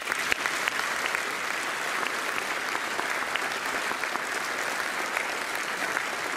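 Large audience clapping steadily, a dense patter of many hands.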